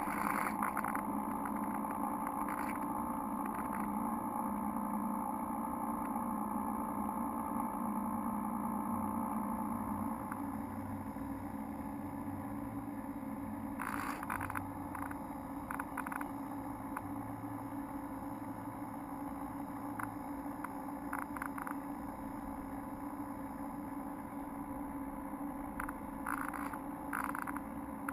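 An RC model Coast Guard 47 boat's electric drive motor running steadily underway, heard from a camera mounted on the hull. The motor hum eases slightly partway through, and a few brief clicks come about halfway and near the end.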